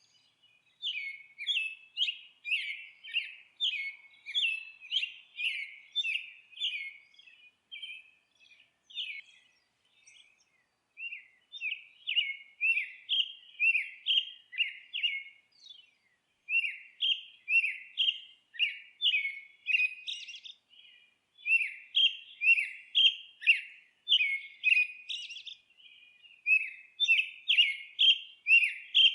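A songbird chirping: short, high notes repeated two to three times a second, in runs of several seconds with brief pauses between them.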